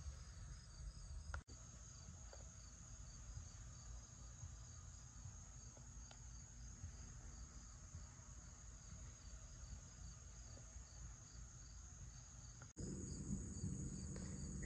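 Faint crickets chirping steadily, a high trill with a regular pulse, over a low background rumble that gets louder near the end.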